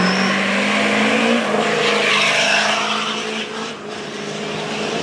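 Chevrolet Silverado diesel pickup revving hard at the line, its engine pitch rising over the first second or so, then launching at full throttle down a dirt drag strip. A rush of noise follows about two seconds in.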